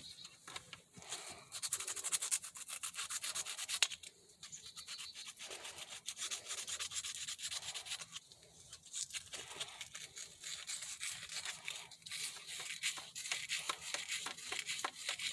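Rapid back-and-forth abrasive scrubbing on the copper tip of an old pencil soldering iron, cleaning it off, in runs of strokes with brief pauses.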